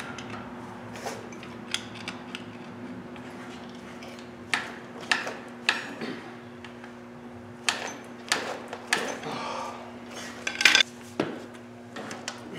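Metal tools clinking and knocking against a Detroit Diesel 3-53 cylinder head while a stuck fuel injector is worked at to free it. There are about a dozen sharp metallic taps at irregular spacing, over a steady low hum.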